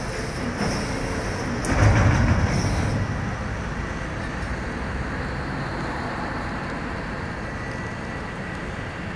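Steady hiss of road traffic and rain. About two seconds in, a louder rush lasts a second or so, then fades back into the background.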